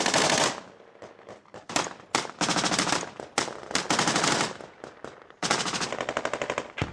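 Automatic gunfire in repeated bursts: one burst is still going as the sound begins, followed by a few short bursts and then several longer strings of rapid shots, each lasting about a second, with short pauses between them.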